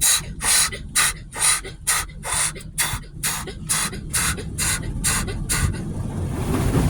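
Automatic car wash spray jets hitting the car in evenly spaced bursts of hiss, about two a second. The bursts stop near the end, giving way to a low rumble.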